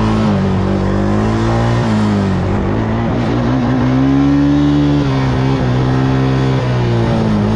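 Suzuki LT-Z400 sport quad's single-cylinder four-stroke engine running under way. Its pitch falls and rises with the throttle, climbing highest about four to five seconds in.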